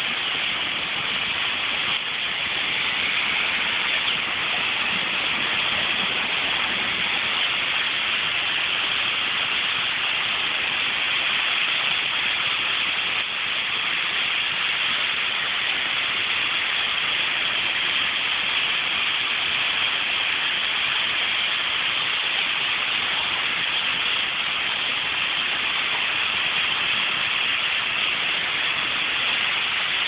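Massed calling of a large flock of birds gathering to roost in a tree at dusk: a dense, steady din with no single call standing out.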